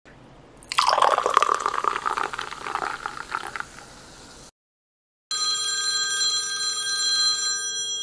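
A carbonated drink poured into a glass, splashing and then fizzing as it settles. After a short silent gap, a phone rings with a steady electronic tone for about three seconds.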